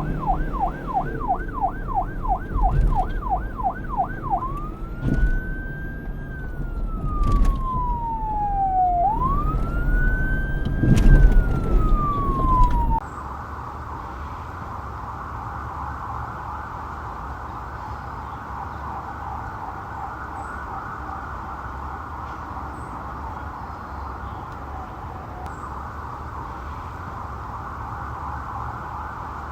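Police car siren cycling in a fast yelp, about three rises and falls a second. About four seconds in it switches to a slow wail, with two long rising-and-falling sweeps and engine rumble beneath. About halfway through it cuts off abruptly, and a quieter, smeared siren sound with a low rumble continues.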